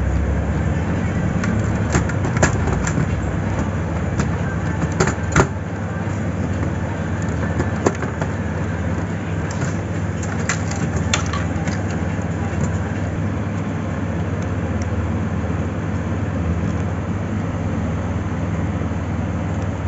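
Steady low background hum and rumble, with a handful of sharp plastic clicks and taps in the first half as the printer's carriage and its ribbon cable are handled and fitted.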